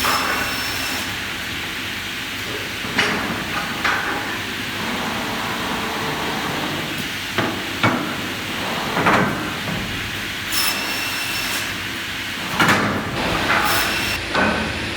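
Salvapush 2000 optimising crosscut saw at work: steady machine noise broken by repeated knocks and clatters of timber. A brief high-pitched hiss comes about two-thirds of the way through.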